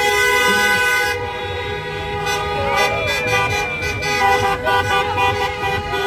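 Several car horns honking together, held and overlapping as a line of cars drives slowly past, with people shouting and cheering over them.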